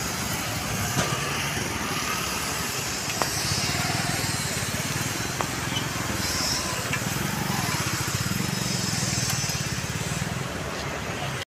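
Busy city street traffic: motorbikes, cars and auto-rickshaws passing, a steady mix of engine and tyre noise with a few short clicks.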